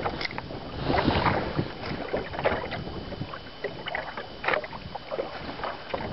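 Water slapping against a small fishing boat's hull and wind on the microphone, with scattered small knocks and clicks.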